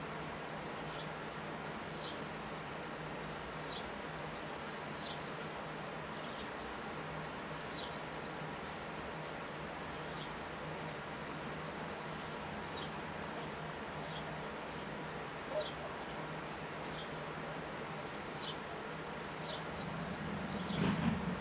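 Sparrows chirping in short, scattered high notes over a steady outdoor hiss and low hum. A low rumble swells near the end.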